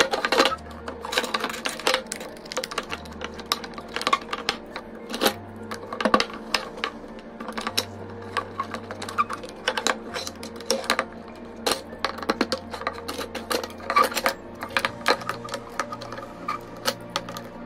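Hard plastic parts of a white plastic shelving stand clicking and knocking as they are pushed and snapped together by hand: many irregular sharp clicks, some in quick runs. Soft background music with a low bass line underneath.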